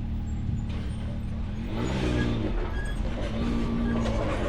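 Off-road vehicle engine running at low speed while rock crawling, with the throttle blipped up and back down about two seconds in, then held steady.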